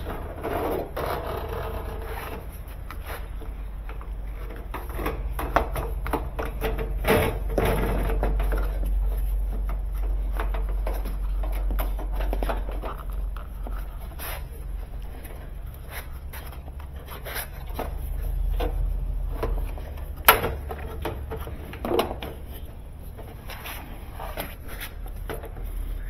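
Handling noise as a corrugated plastic drain hose is worked onto a washing machine: irregular scraping and rubbing of plastic against the sheet-metal cabinet, with a few sharp clicks and knocks, over a steady low hum.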